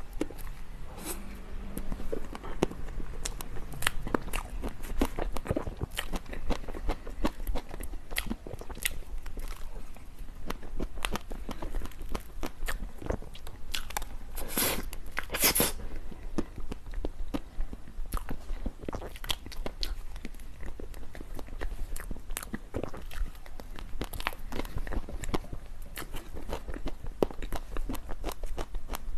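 Close-miked eating of desserts: steady biting, crunching and chewing with many small mouth clicks, and two louder crunches about halfway through.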